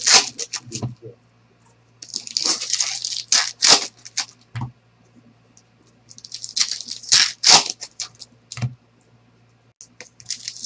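Foil baseball card pack wrappers being torn open and crinkled by hand, in several bursts of crackling lasting a second or two each.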